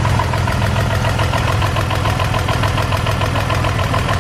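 BMW E46 engine idling with a rapid, even knock from the bottom end, which the owners take for rod knock from a spun bearing.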